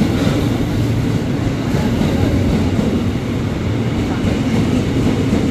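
Ex-JR 205-series KRL electric commuter train running past close alongside the platform: a steady, loud noise of wheels on rails and running gear.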